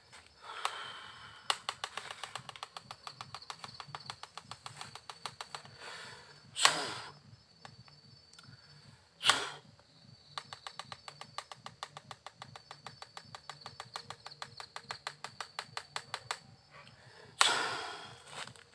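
Fast, even chirring clicks of night insects run throughout. Three loud sudden rushes of noise stand out, at about a third of the way in, about halfway, and near the end, each fading within a second.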